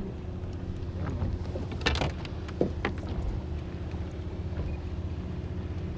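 Boat engine running with a steady low hum. A few sharp clicks and knocks come about two and three seconds in.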